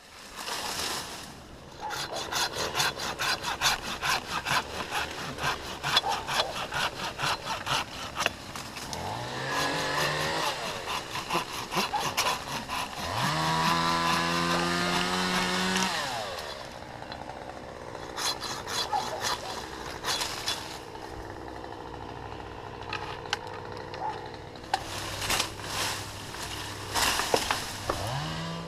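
Quick, even back-and-forth strokes of a handsaw cutting oak wood. In the middle, a chainsaw revs up twice; the second time it is held at high speed for a couple of seconds.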